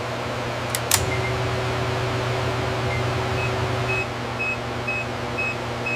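Steady low machinery hum with a sharp click about a second in. A run of short, high electronic beeps, about two a second, starts about three and a half seconds in.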